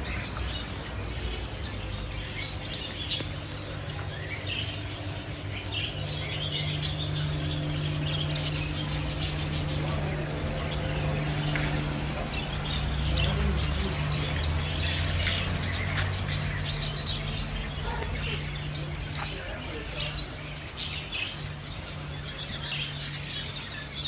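Many caged birds chirping and tweeting together in a dense, continuous chatter of short calls, over a steady low hum.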